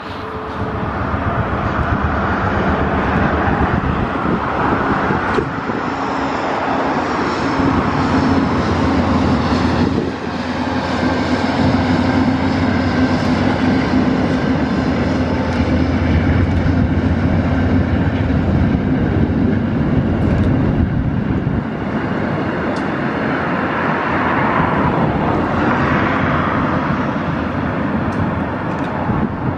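Amtrak Downeaster passenger train, led by a GE P42 diesel locomotive, crossing a steel deck bridge: a steady diesel engine drone with the running noise of the cars rolling over the bridge.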